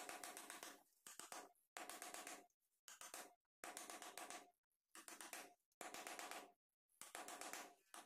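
A wood chisel pushed by hand, paring out a shallow recess in a wooden door frame. It makes about eight faint scraping strokes, each under a second, with short pauses between them.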